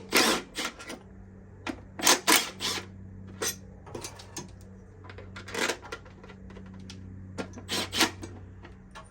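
Irregular metallic clanks and rattles from hand tools and engine parts being worked during engine removal, in scattered clusters over a steady low hum.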